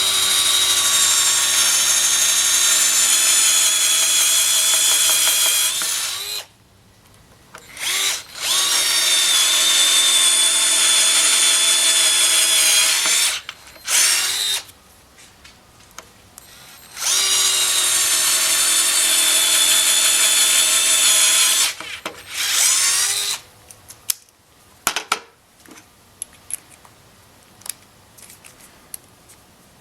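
Small cordless screwdriver motor whining as it drives self-tapping screws: three runs of several seconds each, then a short one, followed by light clicks of handling.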